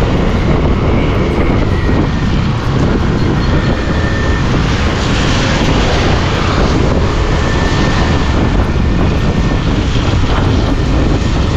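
Steady wind rush and engine noise from a motorcycle riding along a rain-soaked road, loud and unbroken.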